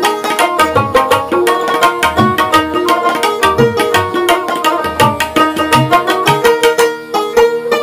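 Bengali folk instrumental music: a dotara playing a quick plucked melody over a steady tabla beat.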